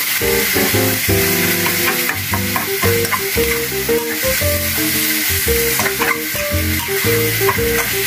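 Minced pork and chili paste sizzling in a hot wok while a metal spatula stirs and scrapes through it, with clicks of the spatula on the pan. Plucked guitar music plays alongside.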